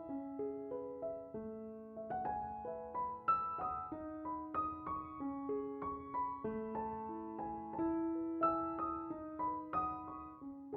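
Background piano music: a gentle, flowing melody of sustained notes.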